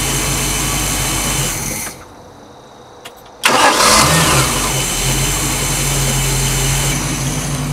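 Chevy 305 V8 marine engine running, then cut off about two seconds in. After a short quiet pause and a click it is restarted and catches instantly, revving briefly before settling into a steady idle; the owner credits the quick start to electronic ignition.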